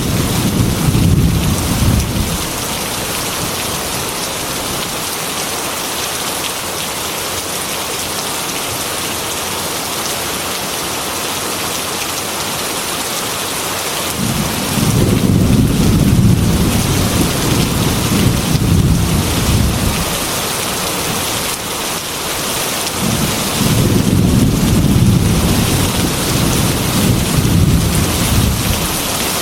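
Heavy rain on a glass window, a steady hiss, with low thunder rumbles: one dies away about two seconds in, another rolls for some six seconds from about halfway through, and a third comes near the end.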